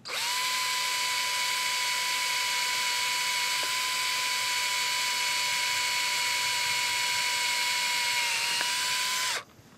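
Cordless drill running at a steady high whine as it bores through a UHMW plastic plow cutting edge. The motor stops suddenly near the end.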